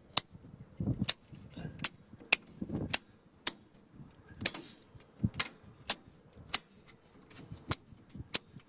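Circuit breakers in a home breaker panel being flipped off one after another: about a dozen sharp snapping clicks, roughly one every 0.7 seconds, with duller knocks among them.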